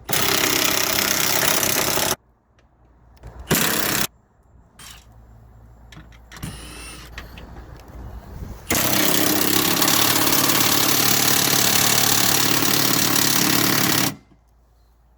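Power tool turning a 10 mm socket, running in three bursts that start and stop abruptly: about two seconds, a brief one near four seconds in, then a long run of about five seconds. It is backing out the bolts that hold the door's window regulator rail.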